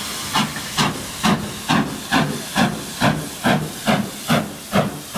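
Steam tank locomotive No. 85 chuffing at a steady pace of a little over two exhaust beats a second, with steam hiss between the beats.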